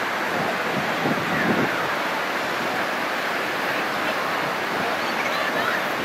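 Steady wash of ocean surf breaking on a sandy beach.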